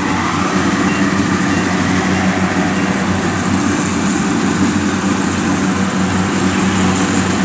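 Kubota DC-70 rice combine harvester's diesel engine running steadily under load as the machine cuts through standing rice.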